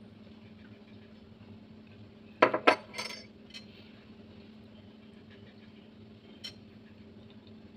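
White ceramic cup with a metal spoon in it clinking as it is set down: three quick clinks about two and a half seconds in, then a couple of fainter clicks.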